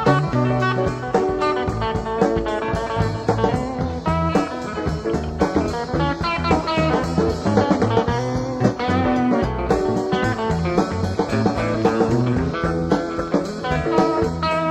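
Background music: a guitar-led band track with a steady beat.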